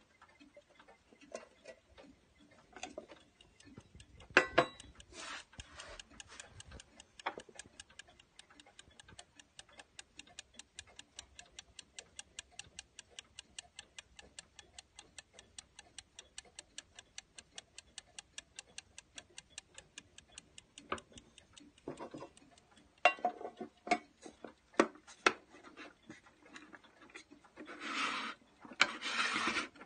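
Antique French miniature grandfather clock's balance-wheel platform escapement ticking fast and evenly, about five ticks a second. A few louder knocks sound about four seconds in and again past the twenty-second mark, and rubbing near the end, as the wooden case is handled.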